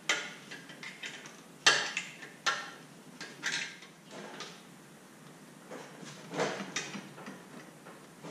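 Scattered metallic clicks and clinks of hand tools on a torque converter bolt in the engine bay, as the last thread-locked bolt is fastened. The clicks come singly about a second apart, with a few close together near the end.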